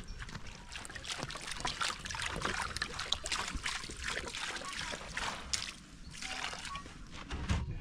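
Water poured from a plastic jerrycan into a mound of dry cement and sand mix, splashing and trickling.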